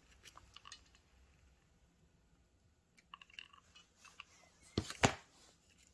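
Quiet crafting handling noises: a hot glue gun being worked against a crinkly paper rose, giving faint clicks and crisp paper crinkles. Two sharp knocks come a little before the end.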